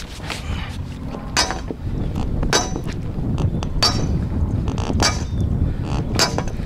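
A steel pipe being hammered into a riverbed as a weir post: about five ringing metal clangs, roughly one every 1.2 seconds, with the pipe slowly going in.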